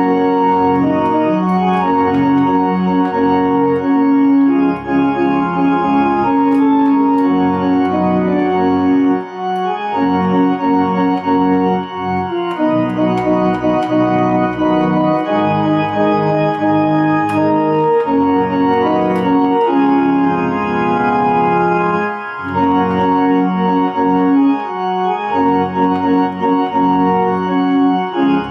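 Kimball two-manual home organ playing a hymn in sustained chords, phrase after phrase, with short breaks between phrases.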